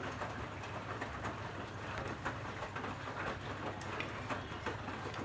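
Bosch WAT28370GB washing machine in its rinse: the drum tumbling the laundry with water sloshing and splashing irregularly, over a steady low motor hum.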